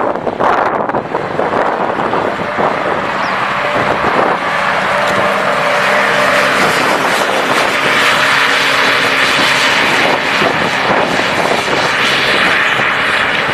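Off-road race buggy's engine running hard at high revs, loud and continuous, with tyres churning dirt.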